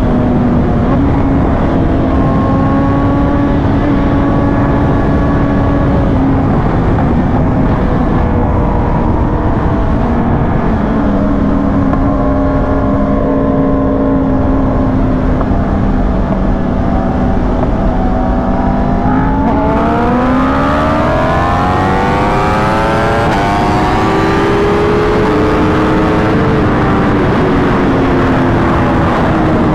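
A vehicle engine running steadily at cruising revs with small shifts in pitch. About twenty seconds in it revs up, climbing in pitch in steps like gear changes, then eases slightly near the end.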